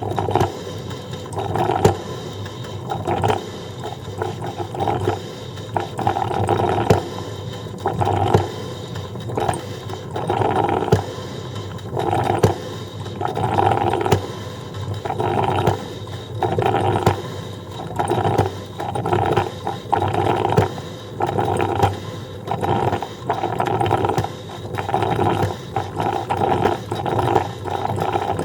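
Coffee percolator perking: repeated irregular spurts of gurgling, roughly one a second, with small clicks and ticks between them.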